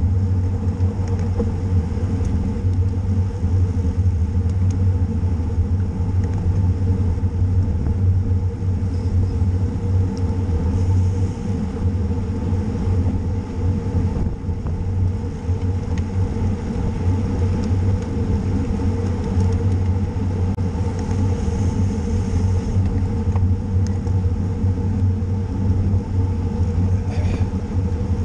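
Steady low rumble of wind and road noise on a rider's onboard camera microphone while riding a bicycle at race speed.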